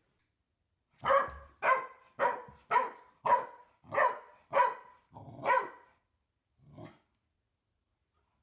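Dog barking in a quick run of about eight short barks, roughly two a second, then one fainter bark.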